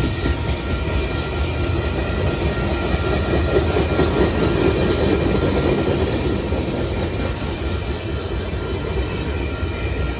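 Freight train boxcars rolling past on their steel wheels: a steady rumble of wheels on the rails, with a few faint steady high tones above it.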